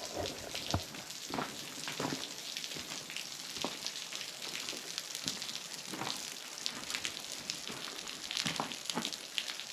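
Meltwater dripping and trickling off a partly frozen waterfall as the ice begins to melt: a steady patter of irregular drops splashing, over a constant hiss of running water.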